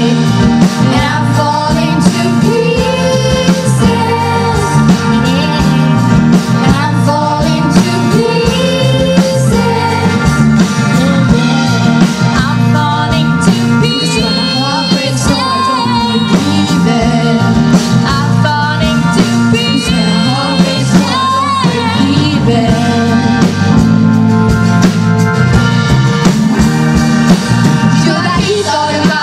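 Live pop-rock band playing, with female voices singing into microphones over guitars, keyboards and drums.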